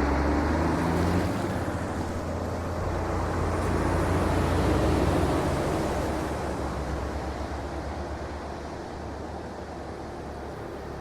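City street traffic: a steady rumble of passing vehicles that swells to its loudest about halfway through, then slowly fades.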